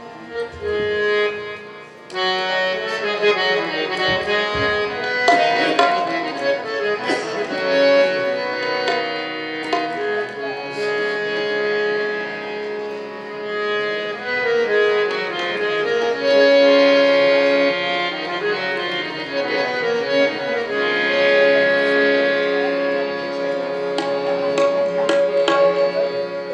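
Qawwali ensemble playing an instrumental passage: harmoniums holding and moving between sustained melody notes over tabla strokes, the full ensemble coming in about two seconds in.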